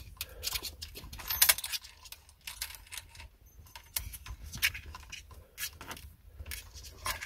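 Light, irregular metallic clicks and rattles of a choke cable and its small fittings being handled and fed through a car's dashboard console.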